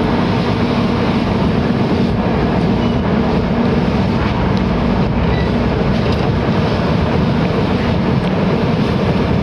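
Passenger train running along the track, heard from an open coach doorway: a steady loud rumble of wheels on rail, with a few faint clicks.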